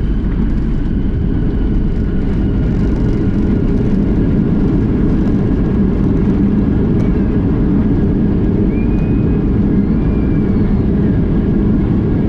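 Cabin noise inside a Boeing 737-800 as it comes in to land: a loud, steady low rumble of engines and airflow, with faint high tones above it.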